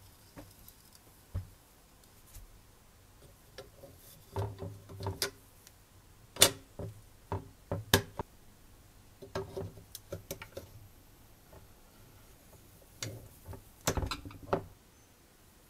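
Light clicks and knocks of hard model car parts being handled and fitted together, in several short clusters, with the sharpest click about six and a half seconds in.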